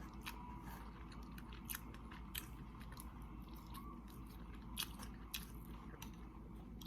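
Close-miked mouth sounds of a person chewing lobster meat: irregular wet clicks and smacks, with a low steady hum underneath.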